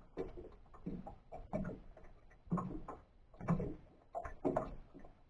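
Water lapping and knocking against a small fishing boat's hull in irregular hollow slaps, roughly one every half second to second.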